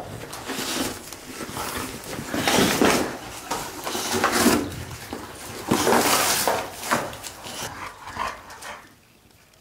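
A dog tearing and chewing at a cardboard box: repeated irregular bursts of ripping and crinkling cardboard, which stop about a second before the end.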